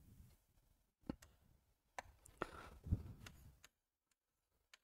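A few faint taps and clicks of a pen on an interactive smartboard screen in the first three seconds, then near silence.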